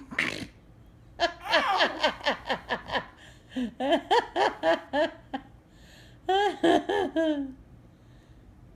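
People laughing in three bouts of quick, repeated ha-ha pulses, each bout dying away.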